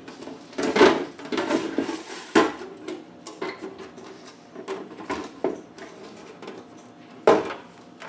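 Clear plastic fridge crisper drawer being handled on a wooden countertop: hollow plastic clatter and rattling, with a few sharp knocks as it is tipped and set down. The loudest knocks come about a second in and near the end.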